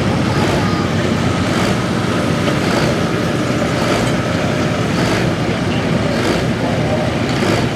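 Hot farm pulling tractor's diesel engine running hard and loud at full throttle under the load of the pulling sled.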